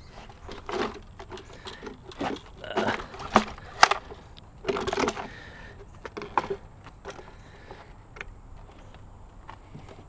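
Irregular clicks, knocks and short scrapes of a scavenged item being handled and worked on by hand, with one sharper click about four seconds in.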